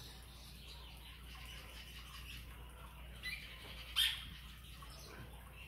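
Quiet room tone with a low steady hum and faint bird chirps in the background, and one short sharp sound about four seconds in.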